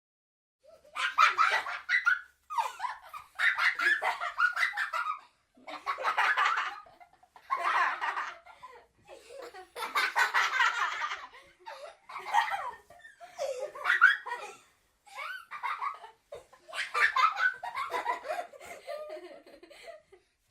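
A child laughing in a run of about ten short separate bursts, each followed by a brief silence.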